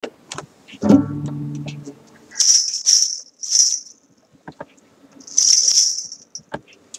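Cuff of small jingle bells tied to a foot, shaken in four bursts of bright jingling, the last and longest near the end. About a second in, a single acoustic guitar chord is strummed and rings for about a second.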